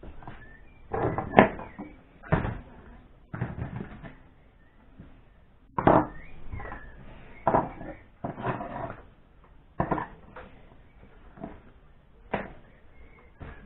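Metal hand tools and carburettor parts knocking, clattering and scraping on a workbench as they are picked up and put down: about a dozen irregular knocks and short rattles, the loudest about a second and a half in and near six seconds.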